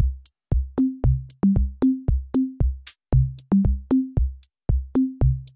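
Background electronic music: a drum-machine beat with short pitched bass notes stepping up and down between a few pitches, about three to four hits a second.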